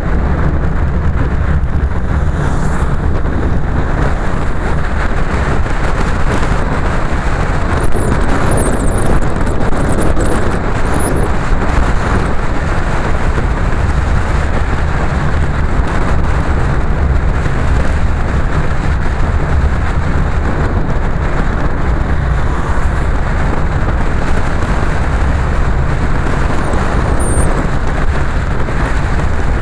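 Car driving along a wet road: a steady, loud rumble of engine, tyre and wind noise.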